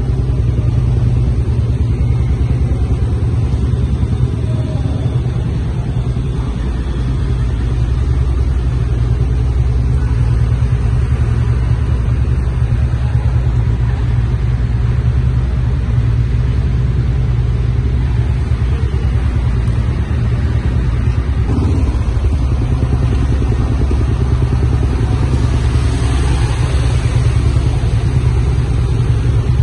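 Steady low rumble of vehicles echoing in a concrete underpass. Near the end a motor scooter rides through the standing floodwater, adding a rising hiss of splashing.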